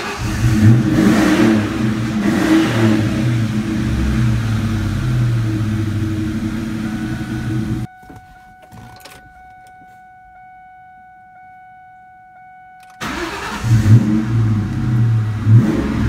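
A 2002 Ford Mustang GT's 4.6-litre V8 runs just after starting, revved briefly a couple of times. It stops about eight seconds in, leaving a steady thin tone, then fires and runs again about thirteen seconds in, blipped twice. The car now starts and runs because the corroded ground wire under the battery tray has been spliced, curing the anti-theft no-start.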